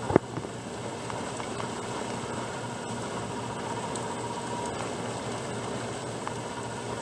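Steady rain falling, an even hiss with no letting up, with a single sharp click a fraction of a second in.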